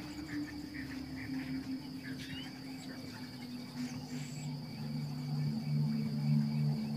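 Steady, high-pitched insect chorus of crickets chirring at dusk, with a low sustained hum underneath that grows stronger about halfway through.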